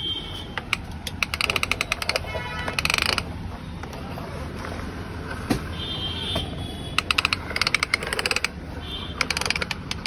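Plastic toy excavator rattling in quick runs of clicks as it is pushed along a hard floor on its plastic crawler tracks, in several bursts with pauses between.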